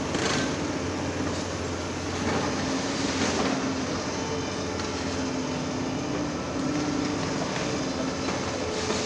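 Liebherr R 946 crawler excavator's diesel engine running with a steady drone under heavy machine noise, with a few knocks from the working machine.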